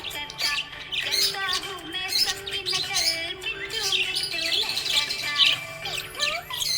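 Budgerigars chirping and squawking in quick, continuous chatter over background music with sustained notes.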